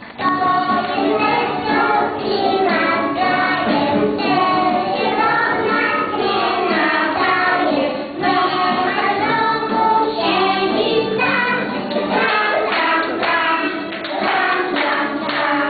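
Group of young children singing a song together, with music accompanying them.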